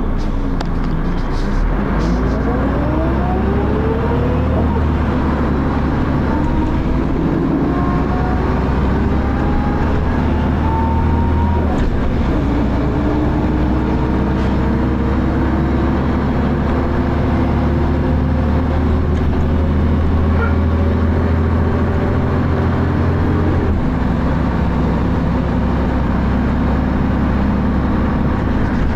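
Dennis Arrow double-decker bus with a ZF automatic gearbox, its diesel engine and driveline under way. A whine rises in pitch over the first few seconds, then the note runs steadily, changing about twelve and again about twenty-four seconds in.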